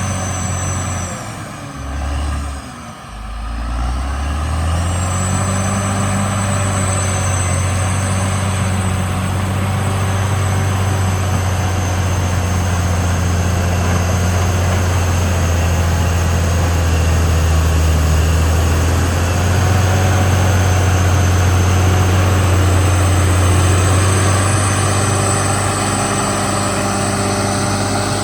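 Cat D6R XL bulldozer's diesel engine running under load, with a high whine riding along with it. About two to four seconds in the engine drops briefly and then picks back up, running steadily after that.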